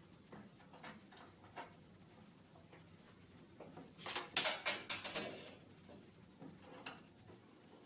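Parts of a display box being handled during hand assembly: a few light clicks, then a brief clatter of sharp clicks and scrapes around the middle, and one more click near the end.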